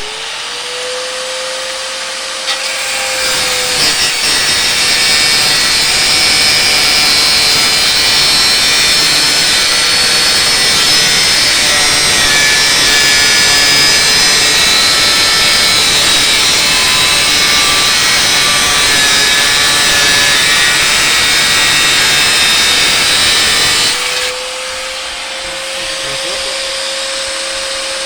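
Handheld angle grinder: the motor spins up to a steady whine, then bites into the work with a louder, coarse grinding noise for about twenty seconds, and near the end it runs free again with just the whine.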